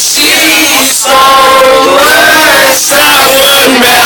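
A group of people singing loudly together, several voices at once, with short breaks between phrases about a second in and again near three seconds.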